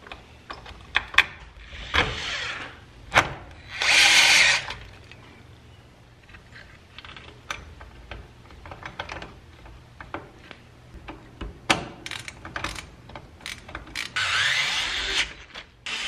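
Power driver running in short bursts, driving the screws that hold the new gear assembly in a chain-drive garage door opener, between scattered clicks and taps of metal parts being handled. The loudest run comes about four seconds in, another near the end.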